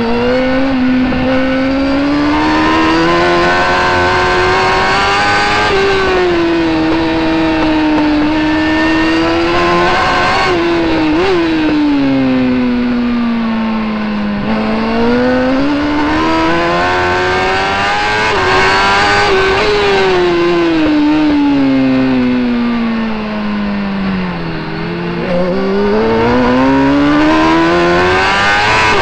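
Racing superbike engine heard close up from a camera mounted on the bike, running hard at track speed: its pitch climbs under acceleration and falls away under braking, several times over.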